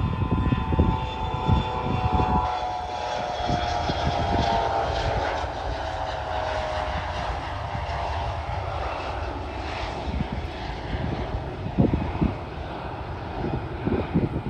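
Bombardier CRJ-900 regional jet taking off, its two rear-mounted turbofans running at takeoff power, with a whine that slowly falls in pitch over the first several seconds. Wind rumbles on the microphone at the start and near the end.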